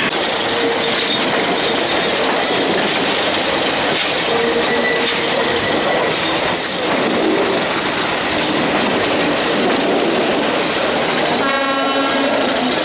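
Passenger coaches rolling past close by: steady loud rumble and rattle of steel wheels on the rails, with faint brief wheel squeals. A horn sounds for about a second near the end.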